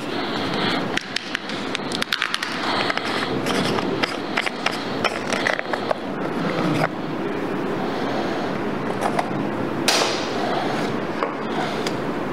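Draw balls clattering as they are stirred in a container, a rapid run of clicks and knocks, over steady background room noise. The clicking thins out about seven seconds in, and one sharper knock comes near the ten-second mark.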